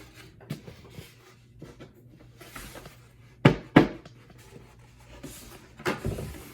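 Hive parts being handled while unpacking: two sharp knocks in quick succession about halfway through, a few lighter knocks, and rustling.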